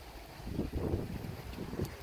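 Wind gusting across the microphone: an uneven low rumble that swells about half a second in and then eases.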